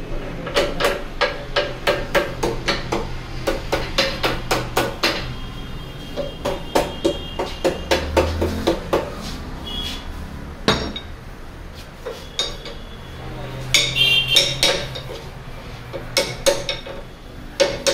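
Rapid metallic hammer taps on the rods of a radiator-tube cleaning rig as they are driven down through the radiator's tubes, about three strikes a second, pausing briefly, then giving way to a few sparser, heavier knocks.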